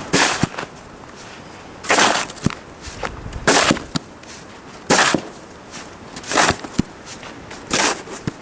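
Snow shovel scraping and scooping snow off composite deck boards: six short strokes, about one every second and a half, with faint knocks between them.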